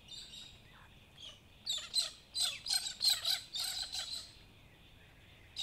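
Birds chirping: a few faint calls, then a flurry of short, high chirps in the middle that fades away near the end.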